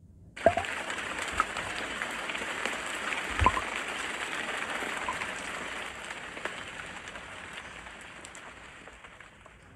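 Rain-and-water sound effect from a Samsung QLED TV's Ambient Mode weather scene. A sharp drop splash about half a second in is followed by a steady hiss of rain with scattered drip plinks, and the hiss fades out over the last few seconds.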